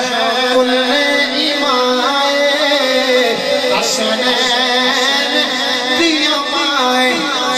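A man sings a Punjabi devotional manqabat through a microphone and PA. His long, ornamented, wavering notes carry over a steady held accompaniment note.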